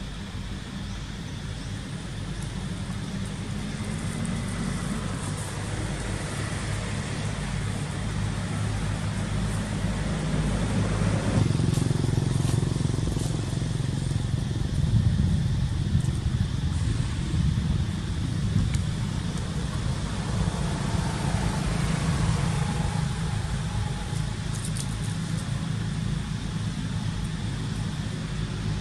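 Steady low rumble of a running motor engine, growing louder about halfway through.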